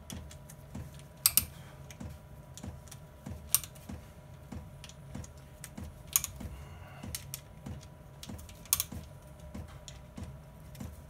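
Metal clicking and clinking of a hand wrench on the camshaft cap bolts and the loosened caps of a Yamaha R1 cylinder head, with a few sharp, louder clinks scattered through.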